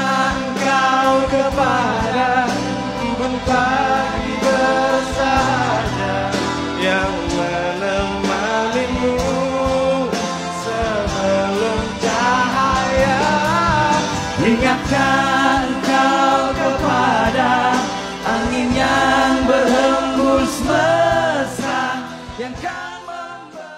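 Men singing an Indonesian pop ballad live, with band accompaniment; the music fades out near the end.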